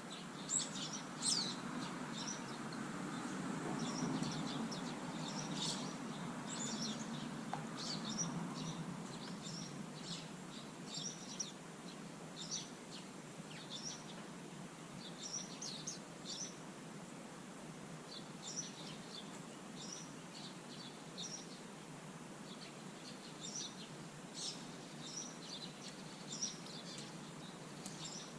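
Small garden birds chirping: short, high calls in scattered clusters throughout. A low rumble swells and fades during the first third.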